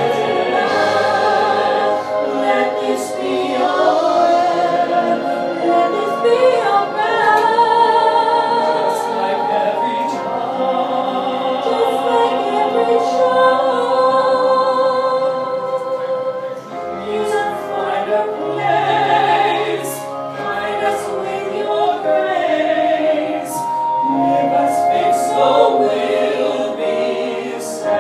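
A man and a woman singing a duet into microphones over instrumental accompaniment, holding long notes with vibrato.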